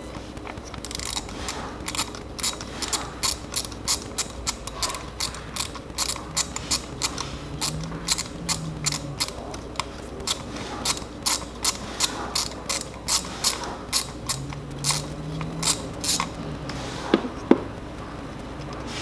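A hand socket ratchet being worked in short strokes, clicking steadily at about two or three clicks a second, while a spark plug or coil bolt is turned. Near the end come two sharper knocks.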